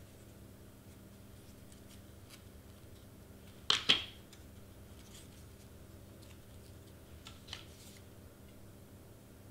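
A hot glue gun set into its plastic stand with a sharp double clack about four seconds in, then lifted out with two lighter clicks near the end, over a faint steady hum.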